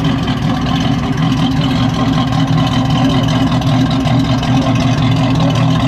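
1977 Chevrolet Camaro's V8 idling steadily through its twin exhaust pipes, a loud, even burble.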